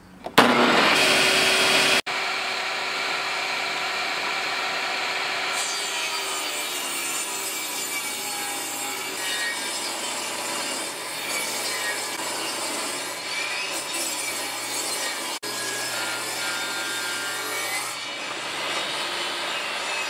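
Portable table saw switched on, spinning up about half a second in, then ripping a rough-sawn board lengthwise along the fence with a steady cutting noise.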